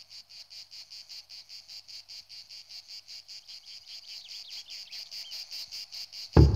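Insects chirping in rapid, even pulses. A single deep drum hit comes in just before the end.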